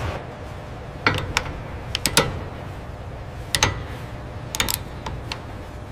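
Wrench ratcheting on a bolt: sharp metallic clicks in small pairs and groups, some with a short ring, over a steady low machinery hum.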